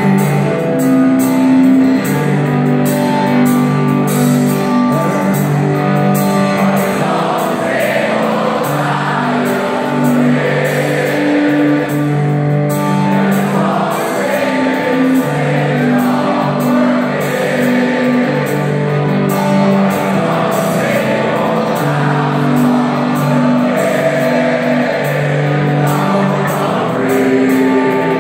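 Live rock band playing a slow song: a repeating, sustained guitar and bass figure with lead singing that comes in strongly after several seconds. It is heard through the hall's echo from within the audience.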